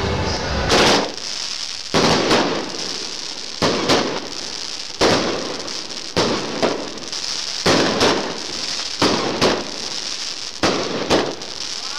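LF Fireworks 'Apollo Rocket' firework firing a rapid run of sparking shots, starting about a second in: sharp pops, often in pairs, roughly one or two a second, each trailing off in a hiss, over a steady high hiss of burning sparks.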